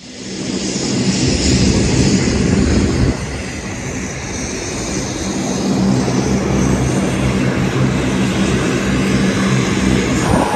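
Lockheed C-5M Super Galaxy's turbofan engines running as the aircraft taxies: a steady, loud engine noise with a low hum under a high hiss. The level dips and the sound changes about three seconds in.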